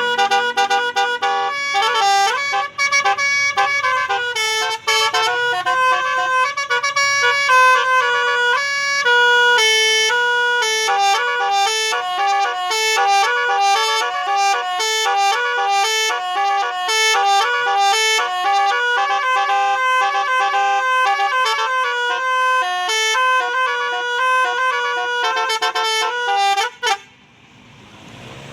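Indonesian bus telolet horn, a set of tuned horns, playing a quick tune of changing notes that cuts off abruptly about a second and a half before the end, leaving a much quieter steady noise.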